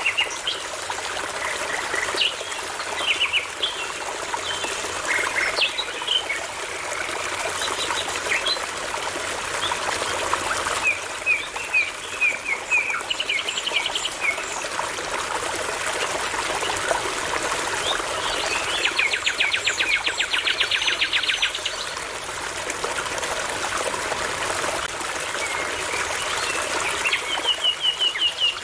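A brook babbling steadily while songbirds sing over it. There are scattered chirps, a string of quick separate notes before the middle, a fast trill lasting about two seconds roughly two-thirds of the way through, and another short trill near the end.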